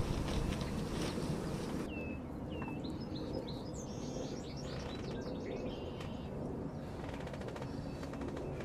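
Small songbirds chirping and singing: a couple of short down-slurred whistles, then a run of quick high chirps, over a faint steady rustle. A soft rustling noise comes before the birdsong, ending abruptly about two seconds in.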